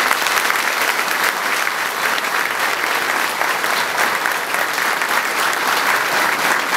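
Audience applauding: dense, steady clapping that holds an even level throughout.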